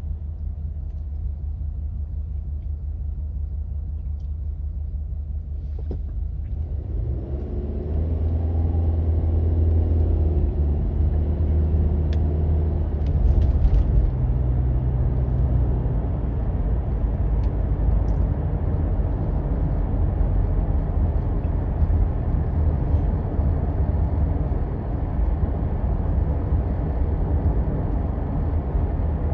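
Car engine and tyre rumble heard from inside the cabin as the car pulls away and speeds up. The engine note climbs and the rumble grows louder from about seven seconds in, then settles into steady road noise at speed.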